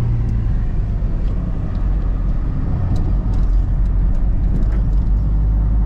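Car driving, heard from inside the cabin: a steady low engine and road rumble.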